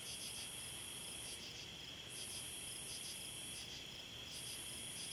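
Night insect chorus of crickets and similar insects: a steady high trill with pulsing notes above it, and a still higher buzz that stops and starts again twice.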